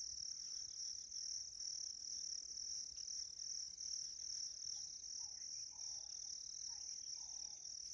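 Steady high-pitched chorus of insects, crickets shrilling without a break, with a few faint, short lower calls beneath it about five to seven seconds in.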